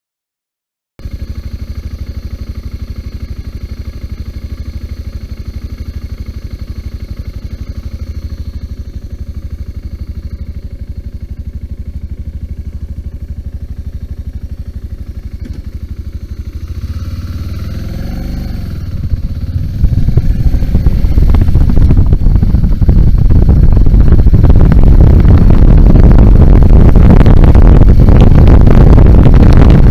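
BMW G 650 GS single-cylinder motorcycle engine idling steadily, then revved with a rising pitch a little past halfway, after which it gets much louder and rougher as the bike pulls away under way.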